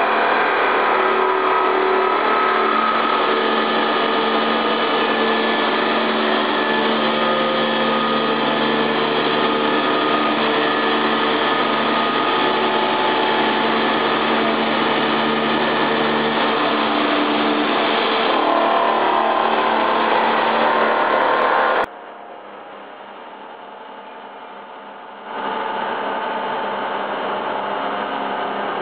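Rottler portal milling machines cutting steel: a loud, steady machining drone with several steady whining tones. About 22 seconds in it cuts off abruptly to a quieter machine hum, and about three seconds later a louder milling sound starts.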